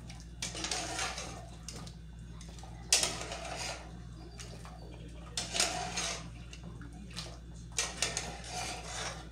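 Metal ladle knocking and scraping against the inside of a large aluminium pot while it moves through hot broth with pieces of meat, in irregular clusters of clinks with a sharp clank about three seconds in. A steady low hum runs underneath.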